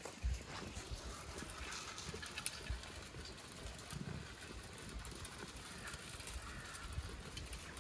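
Zwartbles rams eating from a ground feed trough: a faint, irregular patter of small crunching clicks as they chew and jostle.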